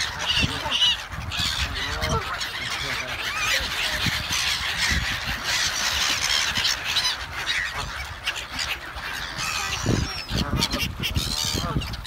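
A flock of black-headed gulls calling all at once: a dense chorus of many overlapping harsh cries that never lets up.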